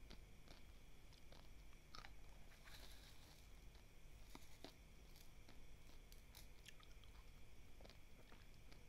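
Faint chewing of dry, uncooked basmati rice grains: a scatter of small, sharp crunches. Around three seconds in, a brief rustle of grains comes as a wooden spoon and fingers scoop them from the plate.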